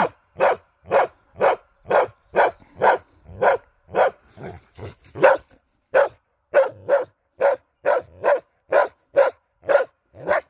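Karelian bear dog barking steadily at a dummy moose, about two barks a second without a break: the rhythmic bay that such a dog keeps up to hold a moose in place.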